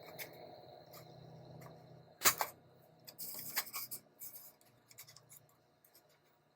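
Hole puncher punching through a cardboard paper towel tube: a sharp double click about two seconds in, then a short scraping rustle and a few small clicks as the tube is handled.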